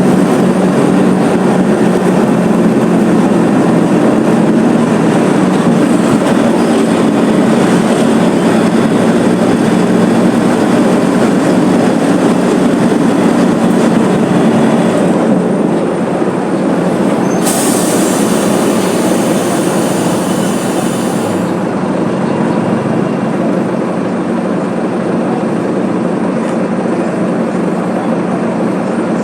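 Mercedes-Benz OF-1721 BlueTec 5 city bus diesel engine running under way, a steady loud drone with rattling from the bus. Just past halfway a hiss comes in for about four seconds.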